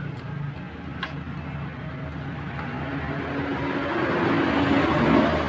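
A motor vehicle passing by, getting louder through the second half to a peak near the end, then fading, over a steady low hum. A single light click about a second in.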